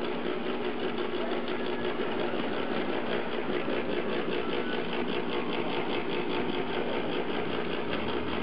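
Motor-driven mechanism of a centrifugal painting machine running steadily, spinning its brush rotor and rotating paint tray, with an even hum and a fast, regular mechanical pulse.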